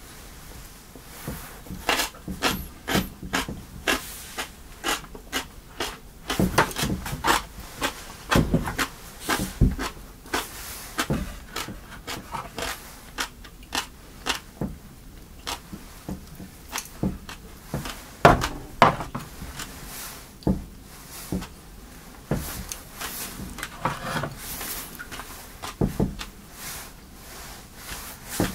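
Someone eating with chopsticks from a rice bowl: close-up chewing and small clicks of chopsticks, bowl and tray, coming in quick irregular strokes, about two a second at times.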